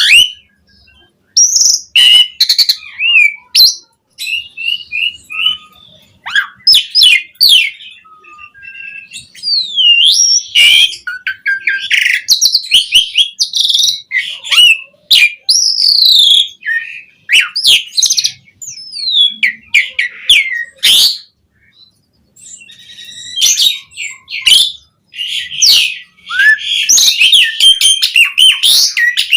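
Asian pied starling (jalak suren) singing its long, varied song: rapid chattering notes, sharp whistles and up-and-down glides in loud phrases, broken by brief pauses.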